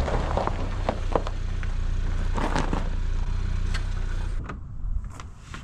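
Ford Maverick Tremor pickup's 2.0-litre EcoBoost four-cylinder running as the truck rolls in slowly on gravel and pulls up, with tyres crunching and crackling over the stones. The steady engine sound drops away about four seconds in.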